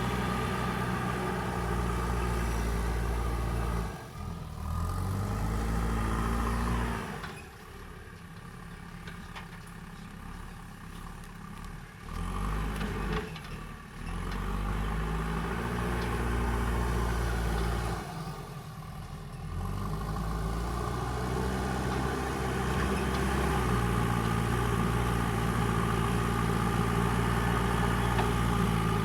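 Diesel engine of a JCB backhoe loader working, its pitch rising and falling as it revs under load. It drops quieter for several seconds about a quarter of the way in.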